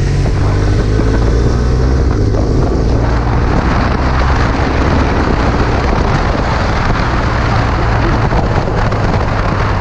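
BMW R1200R LC boxer-twin motorcycle engine running under throttle as the bike accelerates, its pitch rising over the first couple of seconds. From about three seconds in, wind rushing over the microphone grows into a steady roar of hiss alongside the engine.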